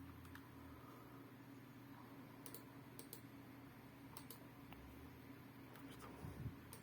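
Faint, scattered computer clicks a second or more apart over quiet room tone.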